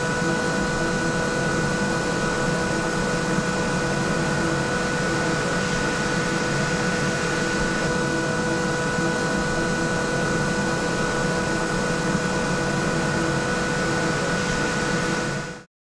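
Grob G350 horizontal five-axis machining centre milling titanium: a steady whine over a constant hiss of cutting. It cuts off abruptly near the end.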